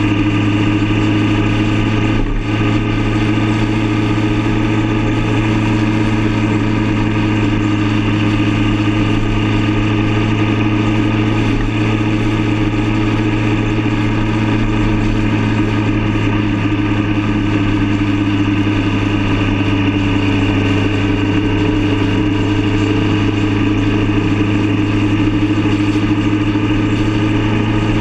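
Motorcycle engine running steadily at cruising speed, a constant drone that holds its pitch, with a hiss of wind and road noise over it.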